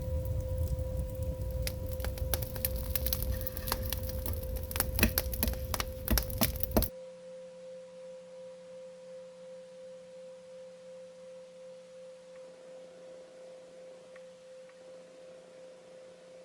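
Firewood burning in a traditional Korean agungi firebox, crackling and popping sharply over a low rumble, cut off abruptly about seven seconds in. A steady ringing tone runs underneath throughout and carries on alone after the fire sound stops.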